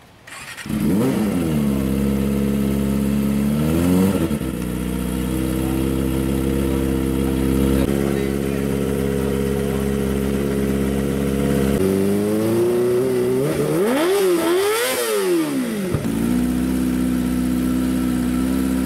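Loud engine idling and being revved, most likely through an aftermarket open exhaust: a quick rev and fall just after it starts, another rise about four seconds in, then steady running. Later it climbs in pitch and gives two sharp rev blips up and down before settling back to a steady idle.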